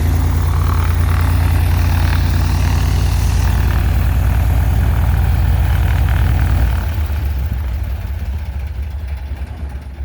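Cessna 182's six-cylinder piston engine and propeller running steadily, then shut down about two-thirds of the way through, winding down as the propeller slows. This is the engine's first run-up on a freshly fitted exhaust system and new cylinder.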